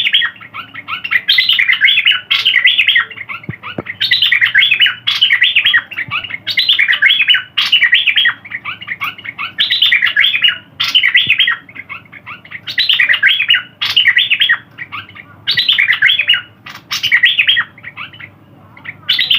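A pet songbird of the kind kept in Thailand as "nok dok taeng" singing: loud phrases of fast, chirping notes, each about a second long, repeated over and over with short pauses between.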